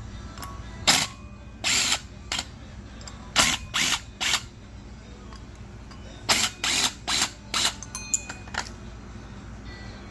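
Car engine running with a steady low hum, broken by short loud bursts of noise at uneven intervals, about a dozen of them: noise from a failing water pump.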